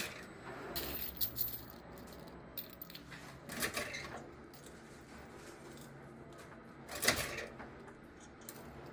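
A few sharp clinks and rattles, the loudest about seven seconds in, over a low steady background hum.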